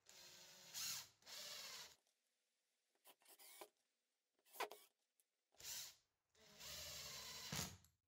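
Makita 18V cordless impact driver driving screws through a 3D-printed tenon into the end of a piece of timber. It runs in several short bursts, its pitch rising as it spins up, with a few short clicks between.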